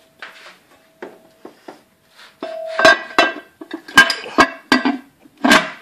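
Machined aluminium gearbox adapter plate being fitted against the gearbox bellhousing: a run of metal-on-metal knocks and clinks, some ringing briefly, loudest in the second half.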